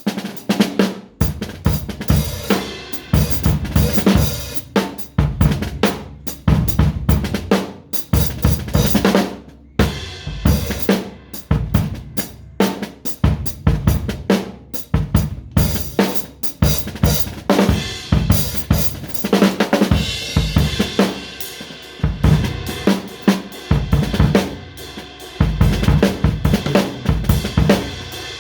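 A drum kit played in a busy, continuous pattern of bass drum, snare and cymbal hits.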